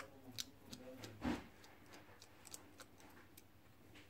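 Faint, irregular small clicks and ticks of a precision screwdriver working the pentalobe screws at the bottom edge of an iPhone XS, about a dozen over four seconds, with one slightly louder knock about a second in.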